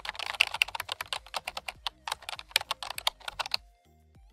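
Keyboard typing sound effect: a rapid run of key clicks that stops suddenly about three and a half seconds in. Faint background music follows.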